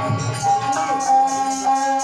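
Instrumental music of a folk katha: long held notes over a quick, steady jingling percussion beat.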